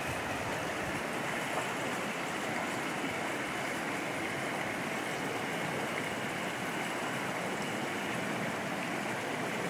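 Steady rush of a shallow, rocky mountain river flowing over stones and small riffles.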